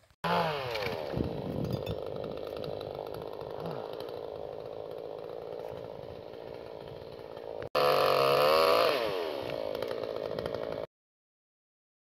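Chainsaw engine running, its pitch falling from a high rev to a lower speed. After a sudden break it comes back louder and revving high, falls again, and cuts off abruptly near the end.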